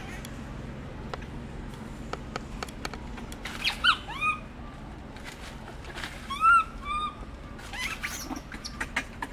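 Monkey calls: short, squeaky calls that rise and fall in pitch, a cluster of about three around four seconds in and two more around six and a half seconds in, over scattered faint clicks and rustles.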